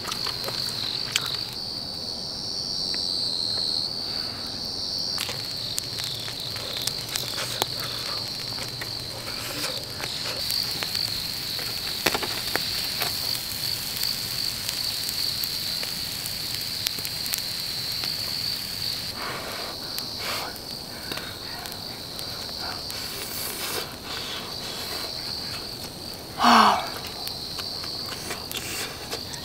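Crickets chirping in a continuous high trill, with scattered light clicks of metal tongs and a grill. About 26 seconds in there is a brief rising vocal sound from a person.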